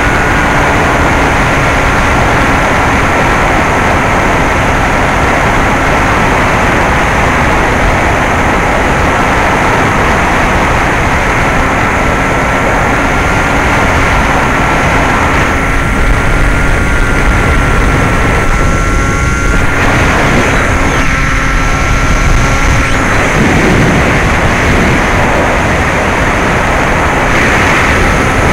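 Bixler 2 model plane's NTM 1400kv brushless outrunner motor and 9x6 propeller running in flight: a steady electric whine over heavy wind rush on the onboard camera's microphone. From about halfway the whine wavers in pitch and level as the throttle changes.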